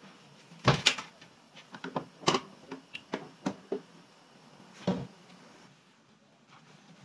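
Whole spices frying in foaming oil in a steel pan: irregular sharp pops and crackles over a faint sizzle, clustered in the first four seconds with one more loud pop about five seconds in.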